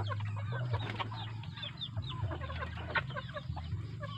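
A flock of chickens clucking and calling, many short calls overlapping throughout, with a single sharp click about three seconds in.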